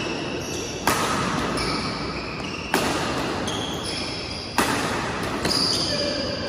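Badminton rackets striking the shuttlecock in a doubles rally: three sharp hits a little under two seconds apart, each echoing in the hall.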